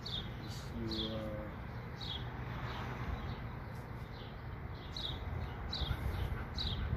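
A bird chirping repeatedly: short downward chirps about once a second, with a brief lower call about a second in, over a low steady rumble.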